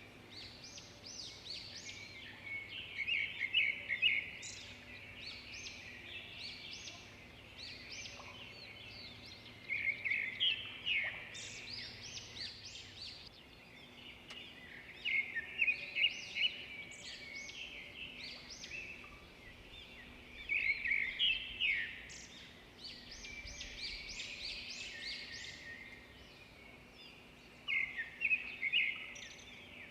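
Birdsong: bursts of quick, high chirping notes repeated about every five or six seconds over a steady low background.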